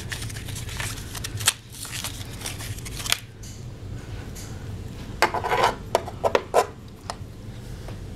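Handling noises as aquarium feeder blocks are set into the tank: a run of short clicks and scrapes, then a cluster of sharper knocks and rattles about five to six and a half seconds in.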